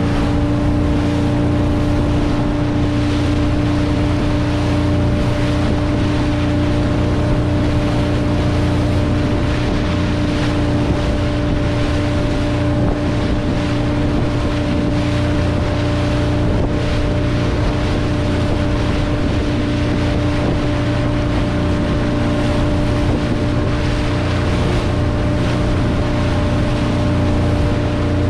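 Chase motorboat's engine running steadily at speed, a constant drone with a steady hum, over the rushing water of its hull and wake.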